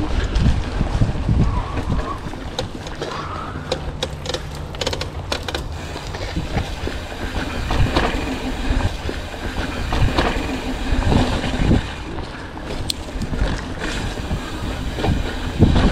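Mountain bike ridden along a dirt trail: tyres rolling and the bike rattling and clicking over bumps, with wind rumbling on the microphone.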